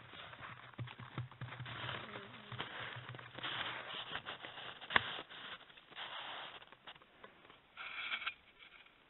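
Moose nosing and rubbing against the trail camera: close-up sniffing with its muzzle and hair scraping over the camera housing. A sharp knock about five seconds in and a short squeak near the end.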